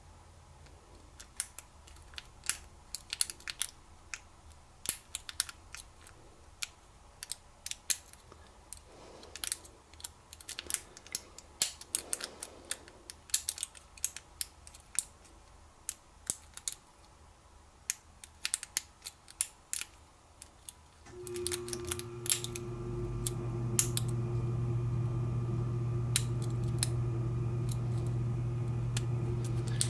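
Lock pick and tension wrench working the pin stack of an American 5200 padlock: many small, irregular metallic clicks as pins set and reset, which the picker takes for serrated pins. About two-thirds of the way through, a steady low hum comes in and holds.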